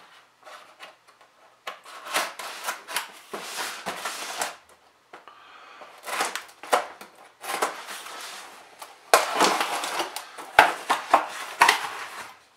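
A cardboard shipping box being opened: a pocket knife slitting the packing tape, then the cardboard flaps scraping and rubbing as they are pulled open. The sound comes as irregular bursts of scraping and rasping with a few sharp clicks.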